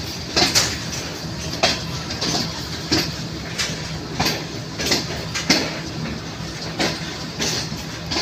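Train wheels clicking evenly over rail joints at slow speed, about three clicks every two seconds, over the steady low rumble of the moving carriage, heard from its open window.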